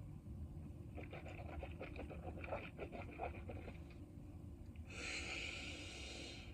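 Faint low hum with a run of small clicks and taps, then a steady breathy hiss for the last second and a half.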